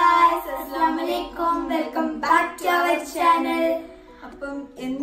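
A young girl and a young woman singing together in short phrases with held notes. The singing stops about four seconds in.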